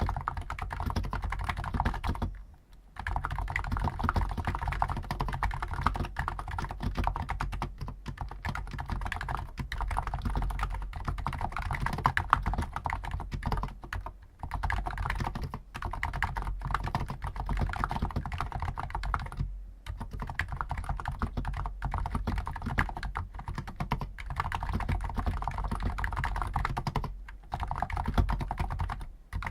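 Fast continuous typing on a Hansung GTune CHL5 XRGB electro-capacitive keyboard with stock 50 g switches, a steady stream of soft key clacks broken by short pauses every few seconds.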